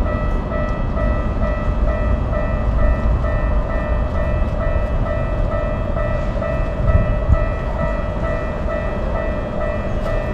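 Japanese railroad crossing warning bell ringing in a quick, even, repeating pattern throughout, over the low noise of a train going by.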